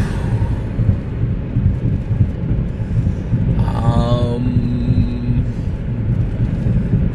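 Steady low rumble of a car's engine and tyres heard from inside the moving car, with a brief voice-like sound, such as a groan or hum, about four seconds in.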